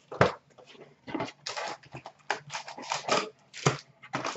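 Fingers scraping, tapping and tearing at a cardboard trading-card box as it is opened: a run of short, irregular scratches and rips.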